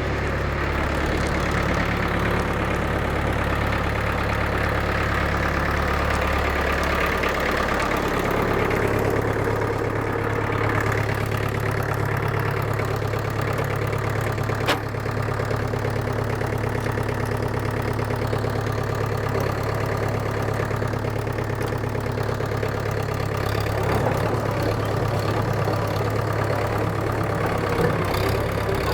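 1963 International TD5 crawler bulldozer's engine running steadily; its speed rises about seven seconds in and shifts again near the end. A single sharp click about halfway through.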